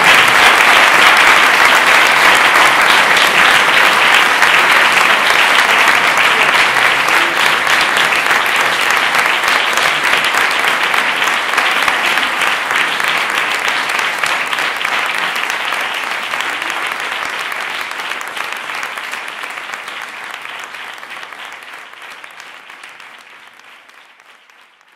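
Audience applause, a dense steady clapping that fades away over the last several seconds.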